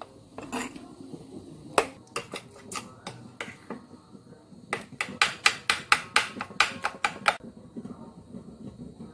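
A spoon clinking against a bowl while stirring a thick flour-and-milk batter: scattered clinks at first, then a fast run of about three to four a second in the middle that stops well before the end.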